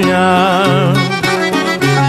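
Background music: a Greek folk-style song, in an instrumental passage just after a sung line ends.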